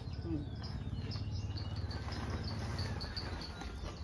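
Rural outdoor ambience: short high chirps repeating about three times a second over a steady low hum.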